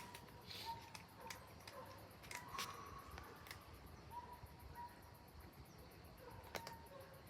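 Faint, irregular clicks and crunches of cats chewing their food, with a few short, faint chirping tones.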